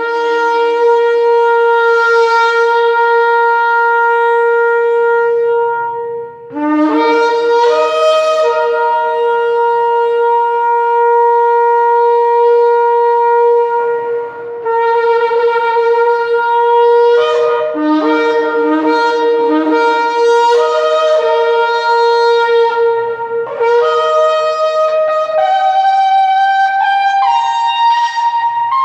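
A 1.15 m extra-jumbo polished shofar blown in long sustained blasts. It opens briefly on its low D-sharp base note, then holds mostly on one steady higher note, dropping back to the low note now and then and climbing through several higher notes near the end.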